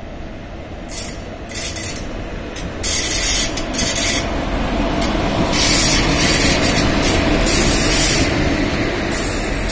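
A ChS4 electric locomotive hauling an express passenger train passes close by. The rumble of wheels on rails grows louder about three seconds in, as the locomotive and then the coaches go past, with gusts of hissing rushing air coming and going over it.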